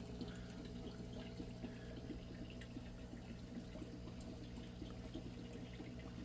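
Water trickling and pouring in an aquaponics system, with small drips, over a steady low hum.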